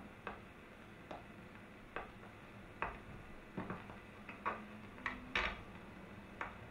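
Footsteps of a man walking across a classroom floor: faint single knocks, about one a second at first, coming closer together and less evenly in the second half.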